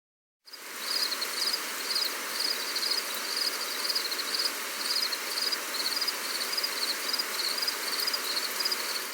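Steady gentle rain hiss with a chirping insect, short high trills repeating a couple of times a second. The sound comes in about half a second in after a moment of dead silence.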